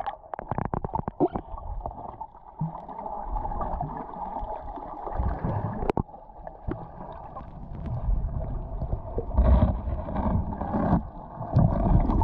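Muffled underwater sound picked up by a submerged camera: gurgling water and a steady dull hum, with a rapid run of clicks and splashes in the first second or so and a louder low swell of water movement late on.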